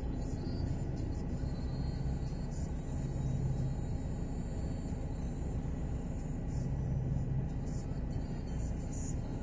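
Car interior noise while driving in city traffic: a steady low rumble of engine and tyres, swelling slightly twice.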